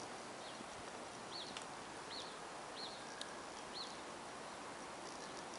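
A bird chirping: about five short high chirps over a steady faint outdoor hiss.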